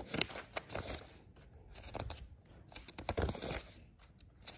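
Paper pages of a printed instruction manual being turned by hand: several short rustles.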